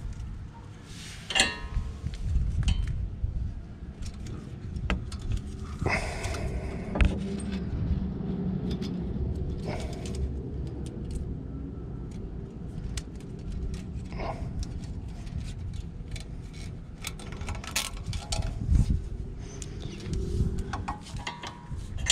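Scattered metallic clinks and light rattles as a removed brake caliper and its pads are handled and hung from a zip tie, over a low steady rumble.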